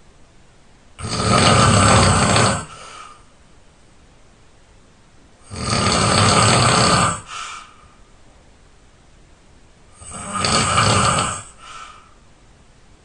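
A person snoring while ill: three long snores about four and a half seconds apart, each lasting a second and a half or so and trailing off in a brief, fainter sound.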